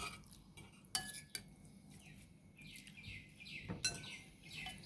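Spoons and plates clinking during a meal, a few separate sharp clinks, with faint short chirps of birds in the background in the second half.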